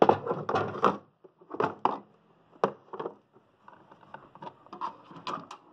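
A ratchet and screwdriver set being handled: irregular sharp clicks and light knocks, most of them in the first second.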